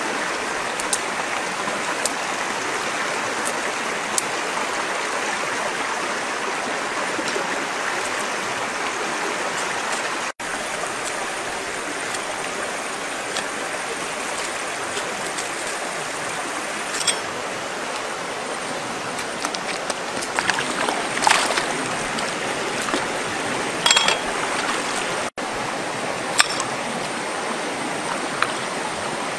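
Steady rush of water from a shallow stream running over stones, with a few short knocks and rustles from bananas being handled over it. The sound cuts out for an instant twice.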